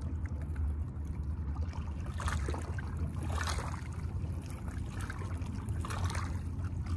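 Water lapping and trickling against shoreline rocks, with a few short splashes about two, three and a half, and six seconds in, over a steady low rumble.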